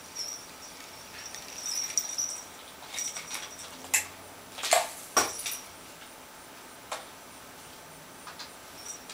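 Small jingle bell tinkling on a cardboard cat toy as it is pulled across the carpet on fishing line, with a few sharp taps and rattles of the toy between about four and five and a half seconds in.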